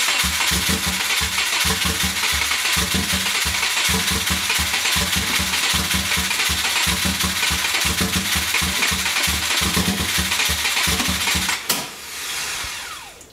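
Subaru WRX flat-four engine being cranked by its starter for about eleven seconds without catching, with an even, pulsing rhythm from the compression strokes, then the starter stops abruptly. It is a no-start, which the owner suspects is from fuel not reaching the engine.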